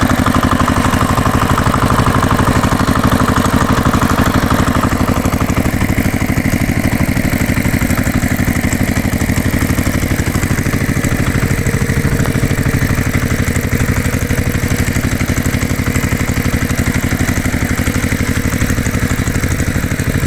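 Tractor engine idling steadily with a fast, even chugging.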